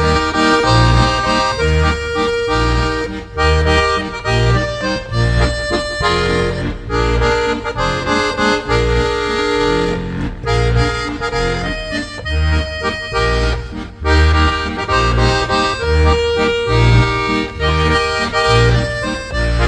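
Accordion music with a steady, regular bass beat under held chords and melody.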